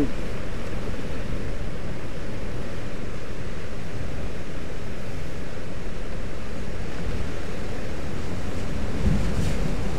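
Steady wash of sea surf against a rocky shore, with wind noise on the microphone.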